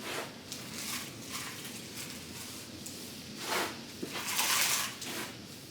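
Potting compost being scooped and worked into a small plastic module tray: irregular rustling scrapes, the loudest a little past halfway.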